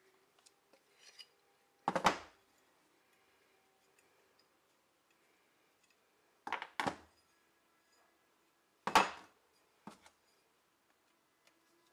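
Small metal parts of a wood lathe knocking and clinking as they are handled on a wooden workbench: a sharp knock about two seconds in, a quick pair in the middle, then a loud knock and a lighter one near the end.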